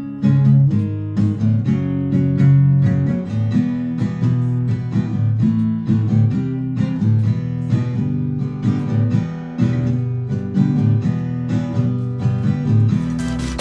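Acoustic guitar played solo, a steady run of picked notes and strummed chords. Near the end it gives way suddenly to electronic dance music with a heavy bass.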